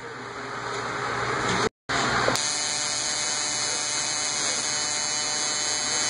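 Ignition coil fired rapidly by a coil pulser tester, its spark snapping across a spark-gap tester as a steady buzzing crackle, with a brief cut-out about two seconds in.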